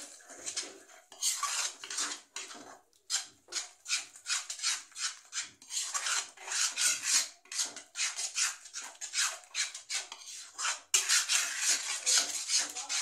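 A steel spoon scraping and stirring through a thick sauce in a metal kadhai, in repeated rasping strokes a few times a second as the ingredients are mixed.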